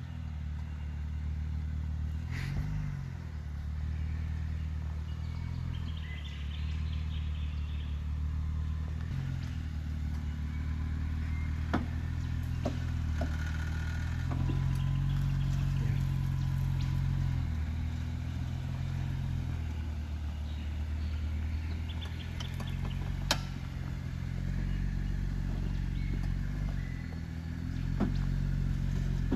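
Four-wheel-drive vehicle's engine running at low revs while crawling along an off-road track, its pitch rising and falling as the throttle changes, with a few sharp knocks and clatter.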